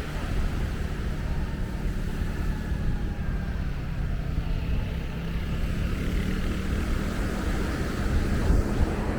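A steady engine hum over a low wind rumble on the microphone.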